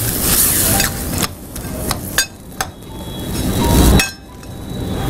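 A spatula stirring drumstick pieces and onions in a brass kadai, with a sizzle and the spatula scraping and clinking on the metal pan. The sizzle swells louder and then stops suddenly about four seconds in.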